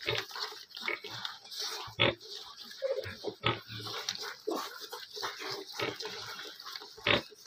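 Ten-day-old piglets suckling at a sow's teats: a busy, irregular stream of short pig grunts and suckling noises, with a few sharper, louder ones about two seconds in, halfway through and near the end.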